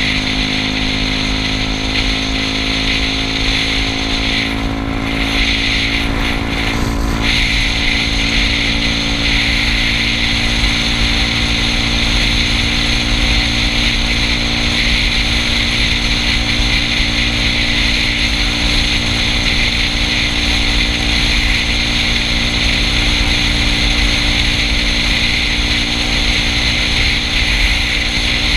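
Yamaha Cygnus scooter's single-cylinder engine running steadily at cruising speed, mixed with wind rushing over the microphone and road noise.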